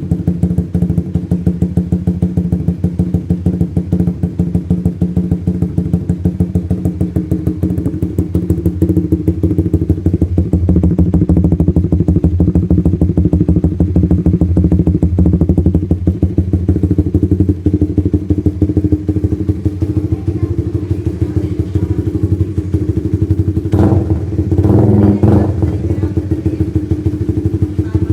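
Suzuki Raider R150 FI single-cylinder engine running through an open-spec aftermarket Daeng exhaust, with a rapid, even pulsing exhaust note. It grows somewhat louder about a third of the way in, and there is a short, rougher burst near the end.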